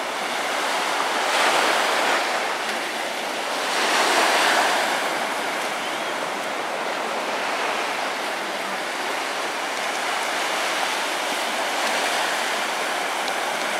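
Small waves breaking and washing up on a sandy beach, a steady rush of surf with two louder surges, one about a second and a half in and one about four seconds in.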